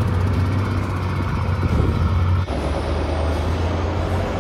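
Engines of off-road competition trial trucks running steadily under load on a dirt course. About halfway through, the sound cuts abruptly to a second truck's engine, which runs on just as steadily.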